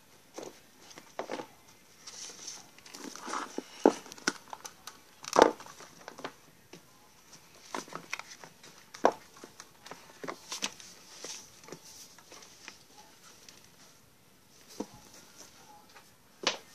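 Handling noises: irregular knocks of shoes being set down on wooden closet shelves, with rustling and crinkling between them.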